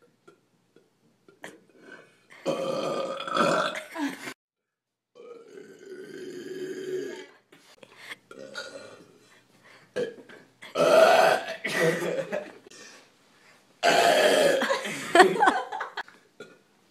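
A person burping on purpose: a series of long, loud belches, each lasting one to two seconds, with short pauses between them. Three of them are louder than the rest.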